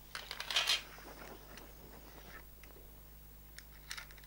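Clear plastic model-locomotive case being handled and opened: a short scraping rustle of plastic near the start, then a few faint clicks and taps.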